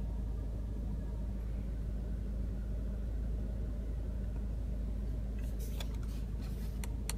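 2016 Audi TT's 2.0-litre turbo engine idling in Park, a steady low rumble heard inside the cabin. A few light clicks and rustles come near the end.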